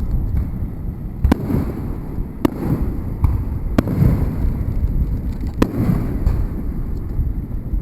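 Fireworks going off: several sharp cracks spaced a second or two apart, over a steady low rumble.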